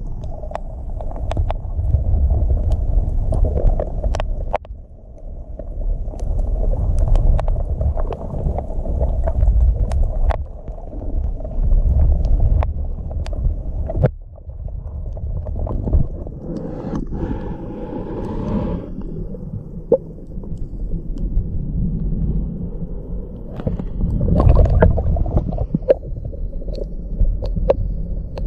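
Muffled sea water surging and gurgling as heard by an underwater camera, a continuous low rumble that swells and fades, with scattered sharp clicks and a brief burst of bubbling about two-thirds of the way through.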